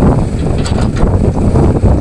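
Hitachi hydraulic excavator's diesel engine working hard as its bucket tips a load of soil into a steel dump-truck bed, with wind buffeting the microphone.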